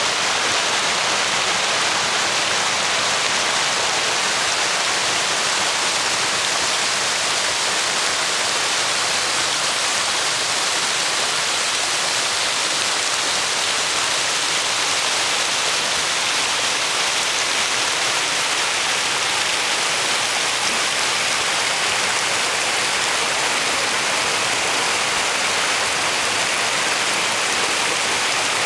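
Bushkill Creek's flowing water: a steady, unbroken rush.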